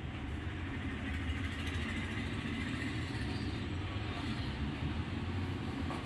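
Steady low rumble of road traffic, an even mechanical drone with no distinct events.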